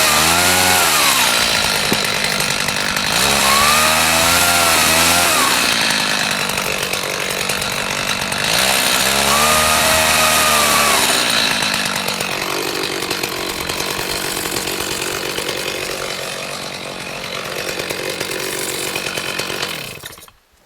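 Gas chainsaw revving up three times, the pitch climbing, holding and dropping back each time as it cuts marks into a log, then running lower and steadier before cutting off near the end.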